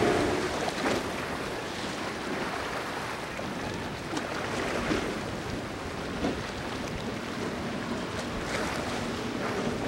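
Steady rush of wind on the microphone over surf and choppy water. An outboard center-console boat runs through the inlet chop, with no distinct engine note heard above the water and wind.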